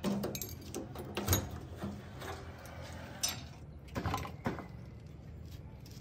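Metal clicks and rattles of a key turning in a JCB 3DX backhoe loader's locking fuel filler cap and the cap being worked open, with a jangle of keys; five or so sharp clicks over a low steady hum.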